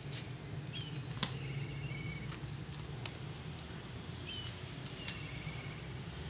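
Cats eating off a brick floor, crunching their food in a few sharp clicks, loudest about a second in and near the end. A small bird chirps in short repeated phrases, a quick call followed by a brief trill, over a steady low hum.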